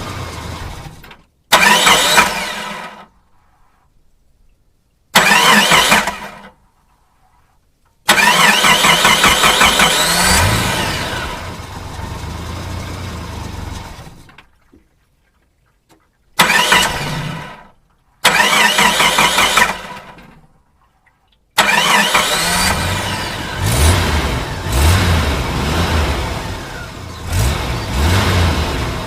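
A series of about six separate engine start-ups, each starting suddenly and rising in pitch as the engine catches and revs, with short silences between. The longer ones, about 8 s in and from about 21 s in, run on with the engine revving up and down before fading.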